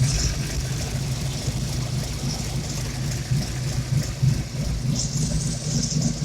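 Ford 351 Windsor V8 idling with a steady low note that pulses slightly unevenly. The owner calls it a little rough and surging at the exhaust, and puts it down to a remaining vacuum leak at the cylinder 7 injector.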